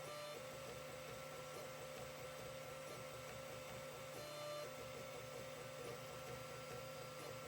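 Creality CR-10 3D printer running a print: a steady stepper-motor whine whose tone shifts briefly every fraction of a second as the moves change, over a low hum.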